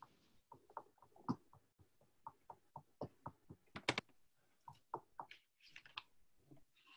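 Faint, irregular taps, clicks and rustles of paper and a plastic stencil being handled and pressed on a tabletop, with a few sharper taps about a second and about three to four seconds in.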